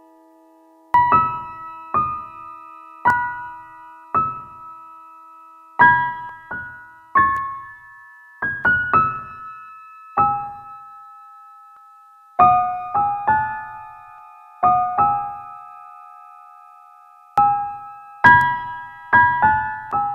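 Slow background piano music: single notes and small chords in a fairly high register, each struck and left to fade, with a short pause near the middle.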